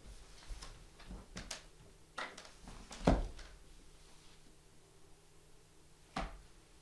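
A person handling objects on stage. A run of light knocks and clatter is followed by a heavier thump about three seconds in and another about six seconds in.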